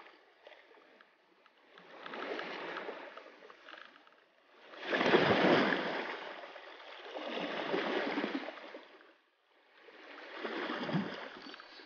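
Small waves lapping on a pebble shore, each one washing in and draining back, four swells a few seconds apart, the loudest about halfway through.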